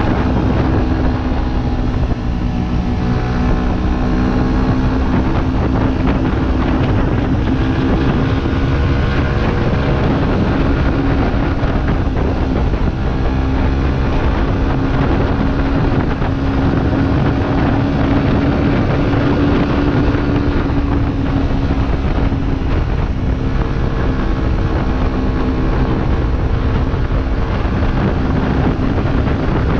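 Motorcycle engine running at a steady cruise, its note holding nearly constant, under heavy wind noise on the microphone.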